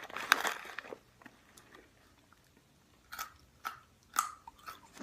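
Close-up chewing and crunching on half-popped popcorn, in irregular crunchy bites: a dense patch in the first second, a pause, then a few separate crunches in the second half.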